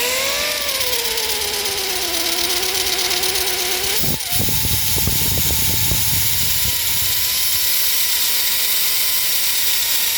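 DeWalt drill running as a makeshift lathe, spinning a socket that is being turned down; its motor whine sags in pitch under load in the first few seconds. Just after 4 seconds the pitch drops briefly and recovers, then holds steady with a rough low rumble underneath.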